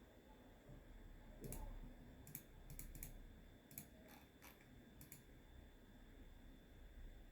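Keys on an SPC Gear GK650K Omnis mechanical keyboard with Kailh switches being pressed, about eight faint, sharp clicks at an irregular pace in the first few seconds.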